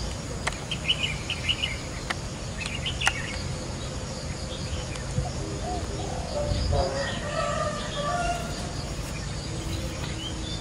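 Small birds chirping in short quick bursts, with a few faint clicks over a steady low background rumble. A longer, lower-pitched call lasts about two seconds past the middle.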